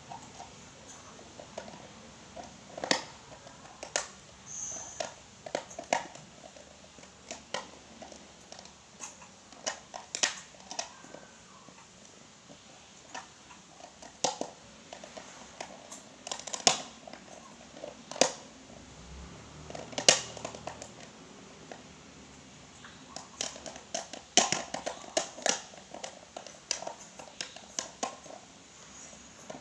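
Clear plastic packaging being handled by hand: irregular sharp clicks and crinkles, scattered unevenly throughout, some louder than others.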